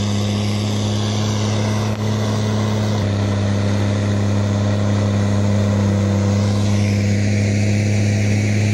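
Railway rotary snowplow and its pushing locomotive running steadily while blowing snow: a constant low mechanical hum with a rushing hiss on top.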